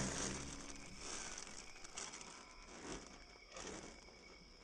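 Thin black plastic bin bag crinkling and rustling in irregular handfuls as hands rummage through the clothes packed inside it. The crinkle is loudest at the start and comes in several short bursts after that.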